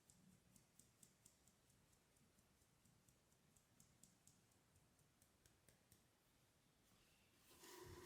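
Faint, light ticks of a utensil against a mixing bowl, evenly spaced at a couple a second, then a louder clatter near the end.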